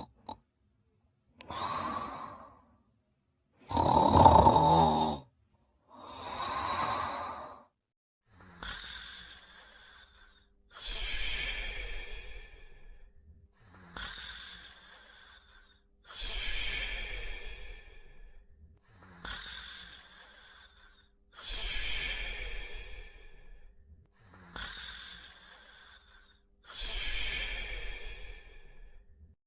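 Cartoon character snoring and sighing in its sleep. A few separate breaths come first, the loudest about four seconds in. From about nine seconds the snoring settles into a regular cycle of a short breath followed by a longer one, repeating roughly every five seconds.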